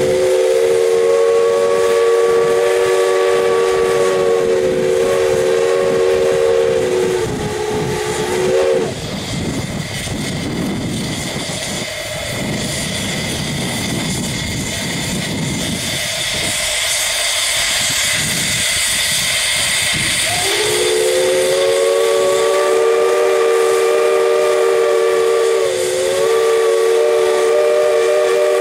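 Steam whistle blowing two long blasts, each a chord of several close tones. Between them steam hisses and rumbles for about ten seconds before the second blast starts about twenty seconds in.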